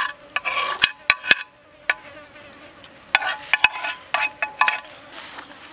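Insects buzzing and chirping in short, repeated bursts, in two spells with a quieter lull between them, and a few sharp clicks in the first second and a half.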